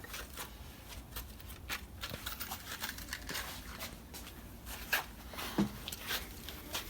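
Scattered light clicks and taps of small parts being handled at a workbench, irregular and soft.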